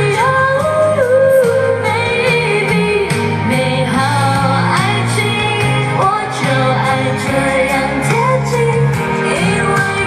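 A woman singing a pop song live into a microphone over amplified backing music with a steady beat and bass line.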